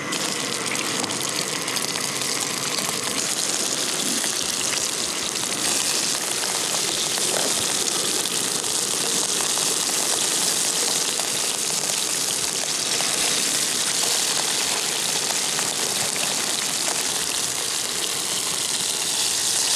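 Wood duck breast fillets and drumsticks sizzling in hot oil in a frying pan over a camp stove, a steady loud hiss.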